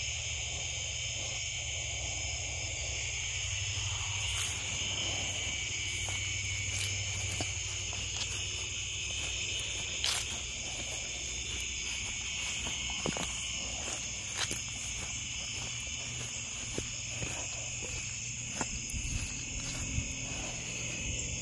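Evening chorus of crickets and other insects, a steady high-pitched trill, with scattered soft clicks from about four seconds in.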